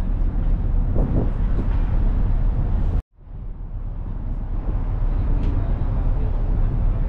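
Steady low rumble of a passenger ferry under way, engine noise mixed with wind on the mic, with faint voices about a second in. The sound cuts out abruptly at about three seconds and fades back in.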